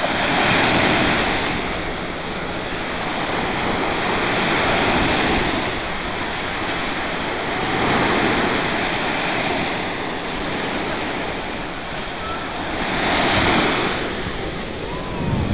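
Ocean surf, waves breaking and washing ashore in four slow surges that swell and fade every few seconds.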